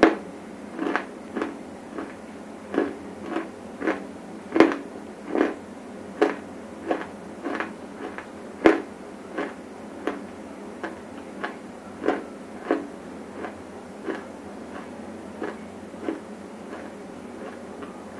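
Dry edible clay chewed close to the microphone: a steady run of sharp, separate crunches, about one or two a second, the loudest about four and a half and eight and a half seconds in.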